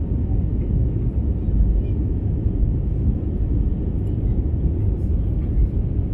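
Cabin noise inside an Airbus A320neo climbing out after takeoff: a steady, loud, low rumble of the engines and airflow.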